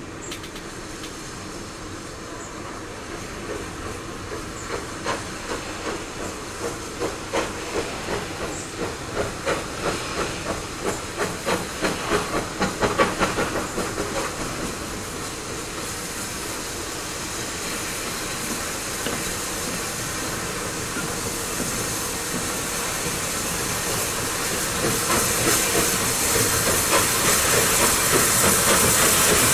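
A steam train goes by with a run of rhythmic beats, at first about two a second, that grow louder and quicker to a peak about halfway through, then settle into a steady rumble. Loud steam hissing swells over the last few seconds.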